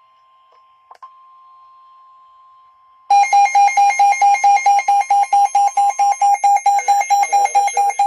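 A weather radio receiver's alarm beeping loudly and rapidly, about five beeps a second, setting off about three seconds in. Under it, and alone before it, a faint steady tone near 1 kHz, the NOAA Weather Radio warning alarm tone that triggers the receiver's alarm.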